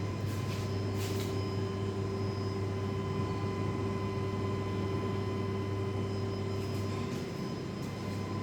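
Plant-room machinery of a water-cooled central HVAC plant running: a steady deep electrical hum with several steady whining tones above it, and a few faint ticks near the start and near the end.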